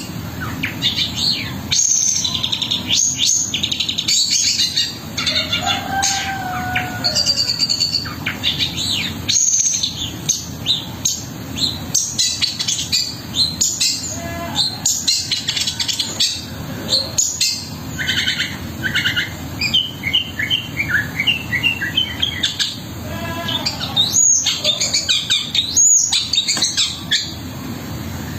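Long-tailed shrike (cendet) singing a fast, varied song full of mimicked calls of other birds, with quick runs of repeated notes, over a steady low hum.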